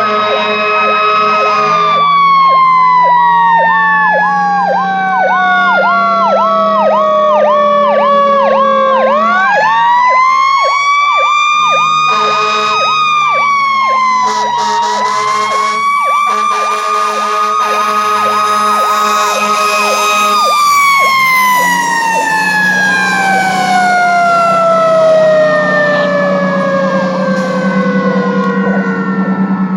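Fire engine sirens: the Federal Q2B mechanical siren of a 1982 Hahn fire truck winds down early on, winds back up about nine seconds in, holds with a short dip, and winds down again from about twenty seconds in. Underneath it an electronic siren yelps in fast repeated cycles over a low steady drone.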